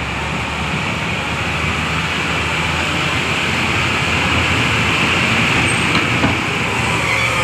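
Motor engine running steadily with a low drone and a constant noisy hiss over it.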